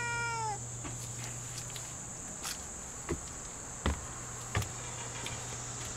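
The falling end of a Lynx Point Siamese cat's meow, then steady high-pitched insect chirring with a few faint knocks.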